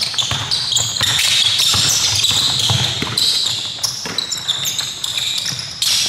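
Basketball pickup game on a hardwood gym floor: a dense run of short, high sneaker squeaks, with the ball bouncing now and then.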